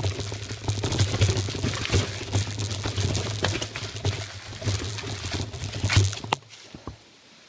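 Mountain bike riding over dry fallen leaves: a continuous rush and crackle from the tyres with many sharp clicks and rattles over a low rumble. It stops abruptly about six seconds in.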